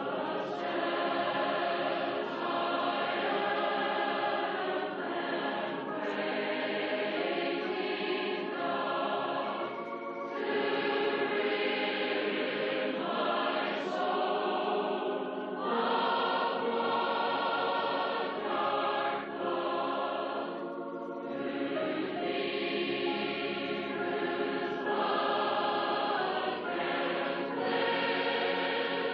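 A large choir singing a hymn in long held phrases, with short breaks between phrases every few seconds.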